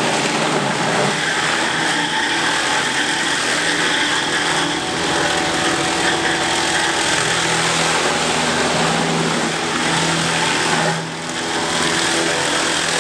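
Meat bowl cutter running steadily with its bowl turning, as diced cheese is worked into the sausage meat. The machine sound dips briefly near the end.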